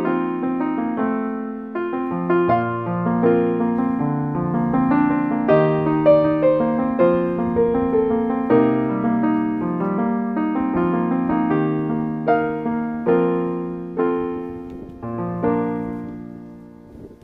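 Background piano music: a gentle melody of held notes over chords, dying away near the end.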